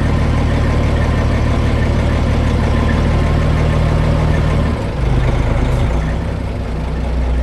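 The 1989 Kenworth W900 dump truck's Detroit Series 60 12.7-litre diesel is running steadily at idle. Its low note shifts about five seconds in.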